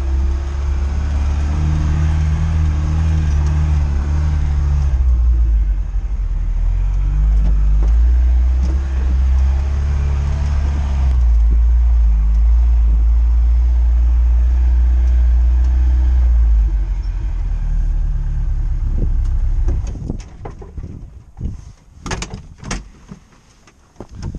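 Lada Niva driving over rough ground, its engine and drivetrain running as a loud, deep, steady drone whose pitch shifts up and down a few times. About twenty seconds in the drone falls away, and a few sharp knocks and clicks follow.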